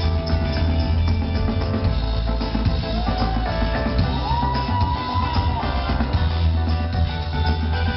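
Live band music from the stage: drum kit beating steadily over heavy bass, with guitar. Around the middle, a high note is held for about a second and a half.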